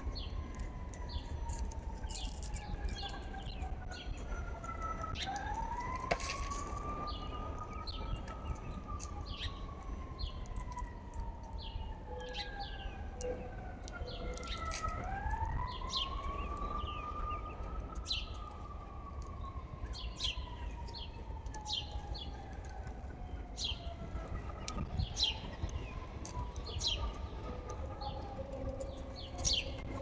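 Distant emergency-vehicle siren wailing, its pitch falling slowly and then sweeping quickly back up, twice about ten seconds apart, fading near the end. Small birds chirp throughout over a low steady rumble.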